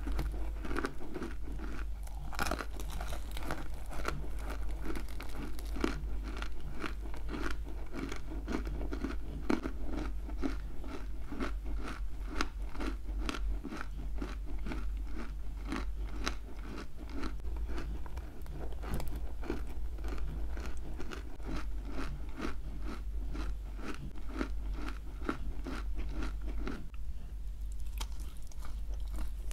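Close-miked crunching and chewing of a bitten-off lump of dry clay, steady crunches about two to three a second. The crunching stops about three seconds before the end.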